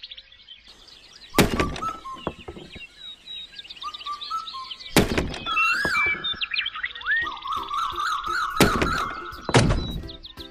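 Four sharp thunks at uneven intervals, over music and many short chirping sounds.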